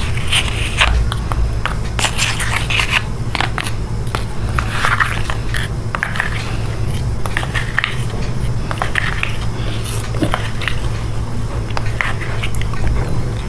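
Someone biting and chewing chocolate close up: irregular crackling and crunching clicks throughout, over a steady low hum.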